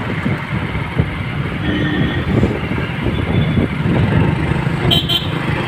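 Road vehicle travelling, a steady low rumble with noise over it, and two short high-pitched beeps about five seconds in.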